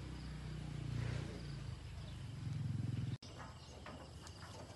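A low, steady mechanical hum that cuts off abruptly about three seconds in, then irregular knocking and rattling as a portable cement mixer is pushed and hauled by hand over rough ground, with insects chirping faintly.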